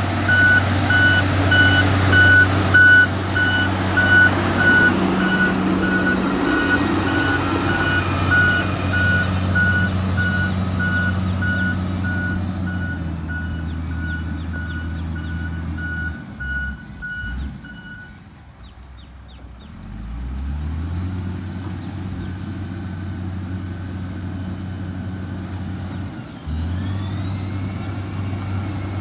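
Heavy diesel road-construction machinery running, with a reversing alarm beeping steadily over the engine hum. The beeping stops about 18 seconds in, and the engine drops low for a couple of seconds before picking up again.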